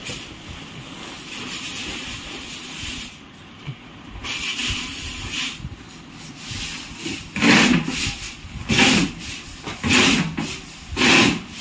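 Loose grain being scooped with a tin and poured into sacks: a rushing hiss of pouring grain, then from about seven seconds in a run of separate, louder pours roughly once a second.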